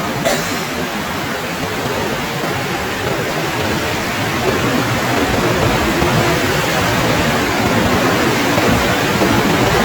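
Steady rushing of a waterfall pouring down onto the beach, a dense even roar of falling water that grows slightly louder toward the end.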